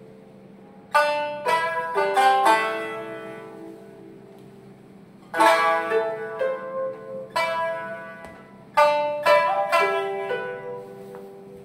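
Shamisen and koto playing traditional Japanese music: short clusters of sharply plucked notes, each cluster left ringing and fading for a few seconds before the next.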